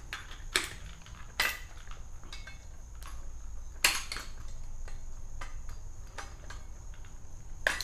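Irregular sharp metallic clinks and clicks of a wrench against the bolt, washers and nut as a wheel axle of a tow-behind lawn dethatcher is fitted and tightened. There is a steady low hum underneath.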